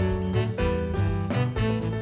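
Background music: an upbeat swing-jazz track with a walking bass and a steady beat.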